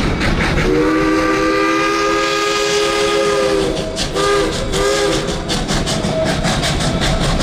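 Steam locomotive's chime whistle blowing one long chord of about three seconds, then two short blasts, over the running train's steady rumble and regular beat.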